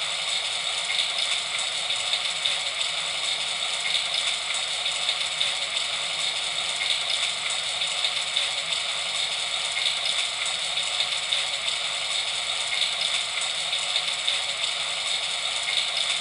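Steady rain falling, an even hiss with a fine patter that holds at one level throughout.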